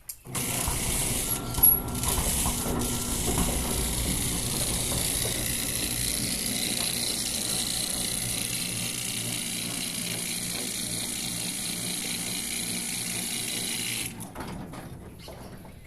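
Fan running with a steady whirring noise from its blades, which the owner finds abnormal. The sound drops away near the end.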